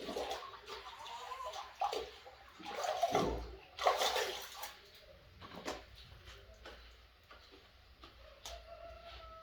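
Water running and splashing, with scattered knocks and clatter over the first half, then quieter; a faint held tone starts near the end.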